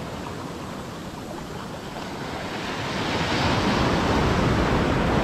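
Sea surf washing in over a shallow sandy beach, with wind on the microphone; the wash swells louder about three seconds in.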